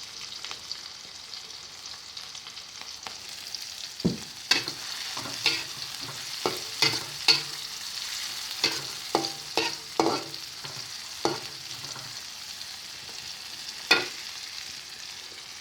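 Garlic and chilies sizzling in hot oil in a pan, with a steady hiss. From about four seconds in, a spatula repeatedly knocks and scrapes against the pan as the mixture is stirred, with one last knock near the end.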